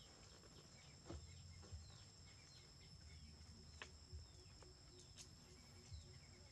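Near silence: faint outdoor ambience with scattered short bird chirps over a steady high-pitched whine, and a few faint clicks.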